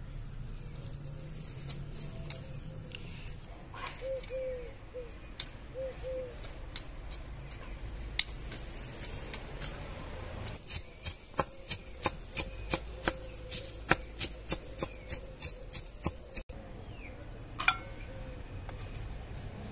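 Knife chopping onion in an enamel plate: a quick run of sharp knocks, about three to four a second, through the second half, which stops abruptly. The first half holds only quiet background with a few scattered clicks.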